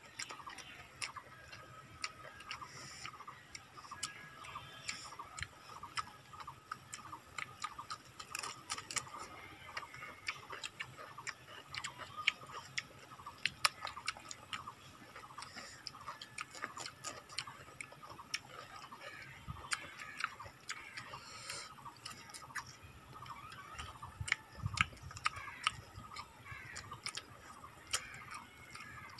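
Close-up eating sounds of people chewing rice and fried chicken eaten by hand: irregular wet clicks and smacks of lips and chewing, several a second.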